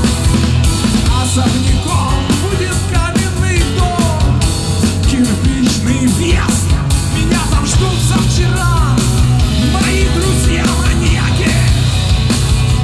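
Loud, heavy rock music played by a band, with sung vocals over a dense, driving backing.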